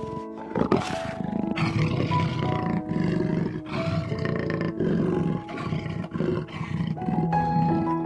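Lion growling in a string of rough, deep calls about once a second, over background music with sustained notes.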